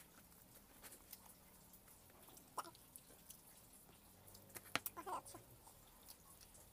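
Mostly quiet room with faint clicks and rustles of hands picking apart a sandwich, and chewing. Near five seconds in there is a sharp click followed by a short voice-like sound.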